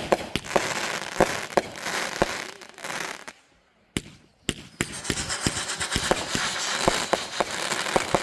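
Fireworks going off: a dense crackling hiss studded with sharp cracks and bangs. It breaks off a little past three seconds in, with a single bang at about four seconds, then the crackling starts up again.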